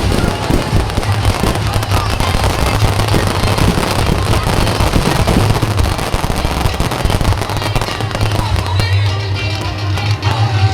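Fireworks crackling and popping in rapid succession over loud music with a heavy bass; the crackling thins out near the end as the music comes to the fore.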